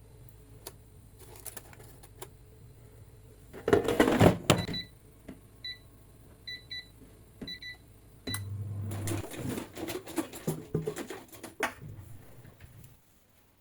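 Air fryer being loaded and set: a loud clatter of the basket and tray being handled, then a series of short electronic beeps from the control panel as the settings are pressed in, followed by more rattling.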